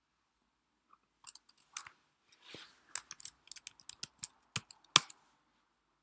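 Computer keyboard being typed on: a dozen or so sharp, irregular key clicks over about four seconds, the loudest near the end.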